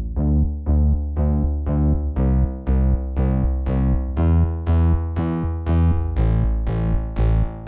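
Background electronic music: synthesizer notes struck at a steady beat, each fading quickly, over a heavy bass.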